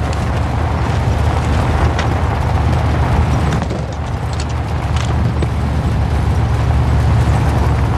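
Military vehicle driving, heard from inside the cabin: a steady low engine and road rumble with a few faint rattles and clicks.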